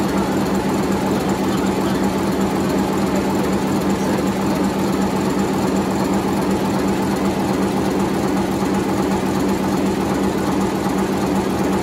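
Machinery running steadily: a constant hum with a fast, even clatter over it.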